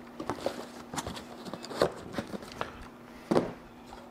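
Cardboard box, plastic wrap and packing material rustling and crinkling as mirrors are unpacked by hand, with sharper knocks where parts are set down on a workbench, the loudest about two seconds in and again near the end.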